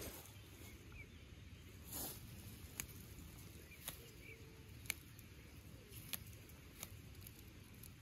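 Wild strawberries and daisies being picked by hand in long grass: quiet rustling of leaves and grass, with a brief rustle about two seconds in and about six small sharp snaps of stems scattered through.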